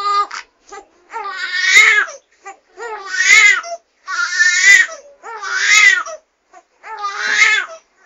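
Baby crying: about five loud, pitched wails, each under a second long, with short catching breaths in the gaps between them.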